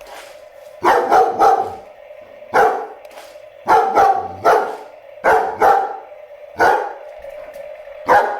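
German Shepherd barking repeatedly in loud bursts of one to three barks at a remote control toy car, a sign that the dog dislikes the car and is wary of it. A faint steady hum runs underneath.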